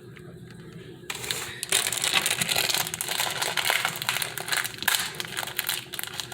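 Bag of curry powder crinkling and rustling as it is handled and emptied into the pot, a dense run of crackles starting about a second in.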